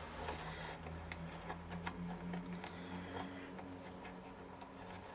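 Faint, scattered light ticks and taps of hands handling and pinching card pieces of a hexagonal plinth, over a steady low hum.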